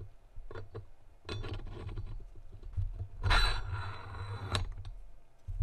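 Workshop handling sounds: a few light clicks, then two stretches of scraping or rubbing, the second, about three seconds in, louder and lasting over a second.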